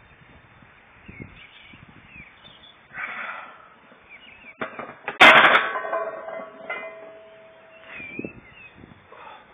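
A loaded barbell clanging once against a steel power rack about five seconds in, sharp and loud, with the metal ringing on for over a second, as the bench-pressed bar is put back. Before it comes a short noisy breath, and birds chirp faintly.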